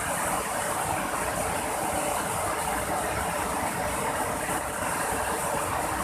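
Steady rush of fast-flowing river water, loud and unbroken.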